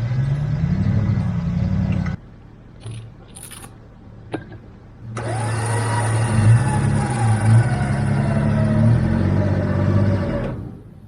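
An SUV engine running and revving, in short pieces cut together. The pitch rises for about two seconds, then a quieter stretch follows with a few knocks. The engine comes back with a whine that rises and then slowly falls, and it cuts off abruptly near the end.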